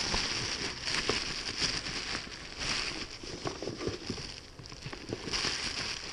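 Bubble wrap and cardboard rustling and crinkling as a wrapped package is handled and pulled out of a cardboard box, with many small crackles throughout.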